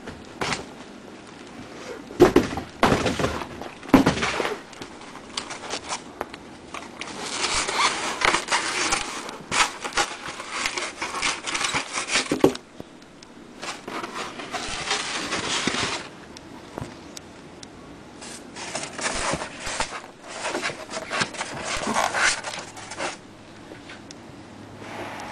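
A machine being handled and lifted out of its white packing box: irregular scraping and rubbing of the packaging with a few knocks, the loudest about two and four seconds in.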